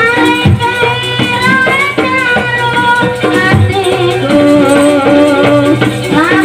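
Live jaranan ensemble playing a sampak piece: a high melody that slides up into long bending notes over steady drum strokes, with a deep beat about every three seconds.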